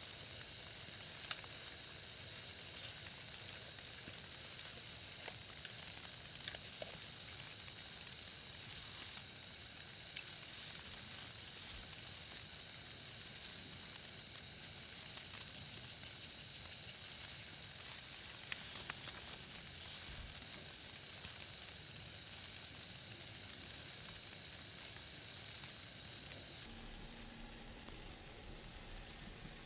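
Green beans frying in butter in a pan: a steady sizzle with scattered small pops and one sharper pop about a second in. A faint steady high whine runs under it and stops near the end.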